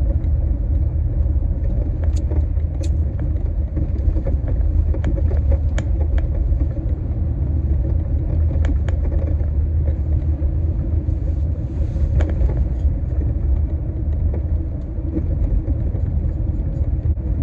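Steady low rumble of a small front-wheel-drive car driving on a snowy road, heard from inside the cabin, with a few scattered light clicks.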